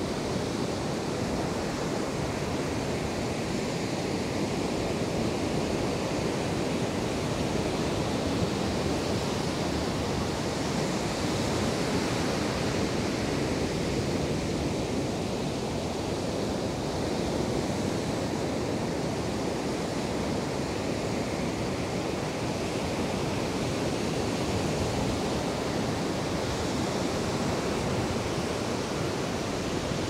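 Ocean surf breaking and washing on a beach: a steady rushing that swells and eases slowly, with no other distinct sound.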